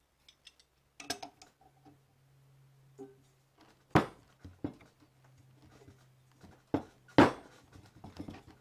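Metal knocks and clanks from working on a stuck part of a vintage wood lathe's headstock, mostly light taps with two loud knocks about four and seven seconds in, over a faint steady low hum.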